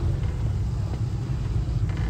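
Off-road buggy's engine running at low revs, a steady low rumble.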